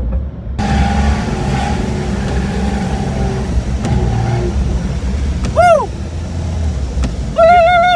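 1992 Jeep Cherokee XJ engine running under load through deep snow, with a rushing hiss that comes in about half a second in. A passenger whoops briefly near the middle and again with a long held "woo" near the end.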